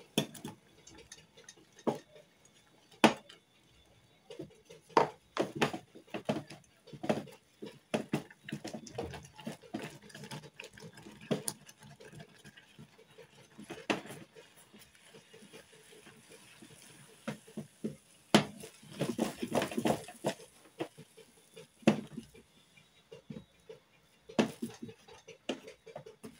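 Wooden spatula stirring wheat flour into boiling water in a stainless steel pot, with irregular knocks and scrapes against the pot's side as the mixture thickens into a stiff paste.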